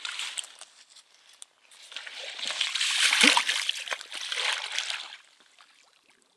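A large wels catfish splashing in shallow water as it is released and swims off. The splashing builds, peaks with one heavy splash a little after three seconds in, and fades. There is a short rustle at the very start.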